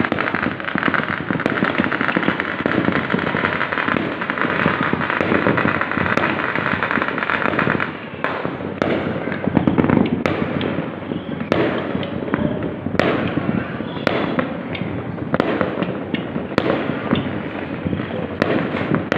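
Chinese New Year fireworks and firecrackers going off: a dense continuous crackle for about the first eight seconds, then a run of separate sharp bangs.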